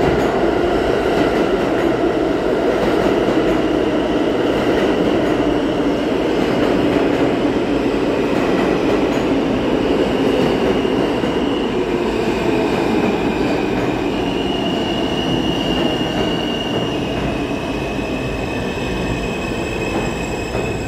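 R160A New York City Subway train pulling into the station and slowing to a stop: a steady rumble of wheels on rail, with high whining tones that step in pitch as it brakes. It grows a little quieter near the end.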